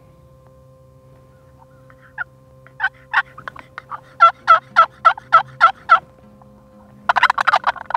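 Turkey calls worked on a box call: a few scattered clucks, then a steady run of about eight yelps, and a fast rattling gobble near the end.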